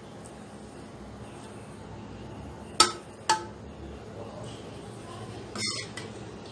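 Two sharp clinks of a metal spoon striking the aluminium cooking pot, about half a second apart, while cooked chana dal is spread over a layer of rice; a brief scrape follows near the end.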